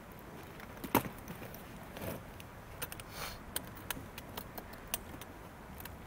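Handling noises: one sharp knock about a second in, then a short hiss and a scatter of small clicks and rattles, like equipment being handled.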